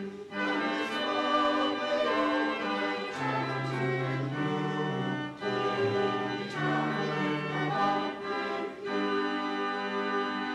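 Church choir singing in parts, slow held notes in long phrases with brief breaks between them.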